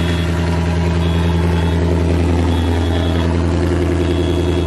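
2020 Ford Mustang GT's 5.0 Coyote V8, with long-tube headers and the exhaust dumped with no tailpipes, idling steadily just after a cold start; really loud.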